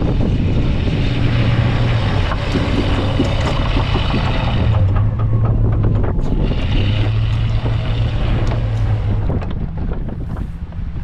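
Snow-plow pickup truck's engine running under load as it pushes snow. The engine pulls harder in two stretches, with a hiss of snow and plow noise over it.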